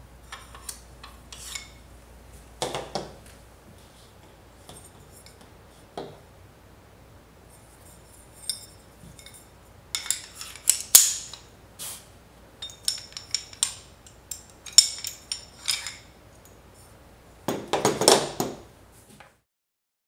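Metal camera mounting plates being handled: a Ronin-M dovetail plate and a CineMilled Quick Switch plate knocking, clicking and scraping against each other. The clinks come in scattered clusters, busiest about halfway through and again near the end, then cut off.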